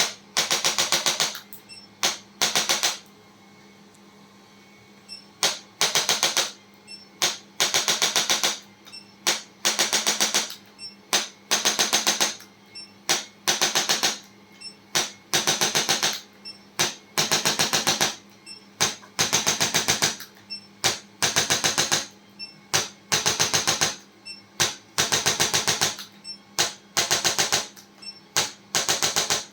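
Handheld chiropractic adjusting instrument firing in repeated bursts of rapid sharp clicks, about ten a second, each burst under a second long with short pauses between, over a faint steady hum.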